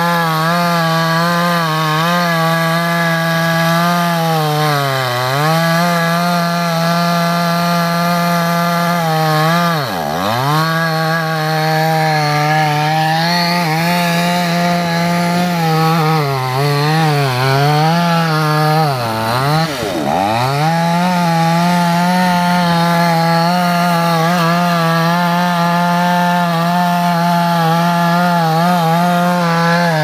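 Two-stroke chainsaw running at high revs while cutting into a tree trunk near its base. The engine pitch drops sharply and climbs back about ten seconds in and again about twenty seconds in, with smaller dips around five seconds and between sixteen and eighteen seconds.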